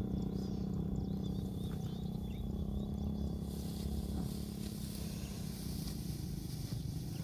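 A steady low engine drone, even and unchanging, with a few faint high chirps in the first couple of seconds.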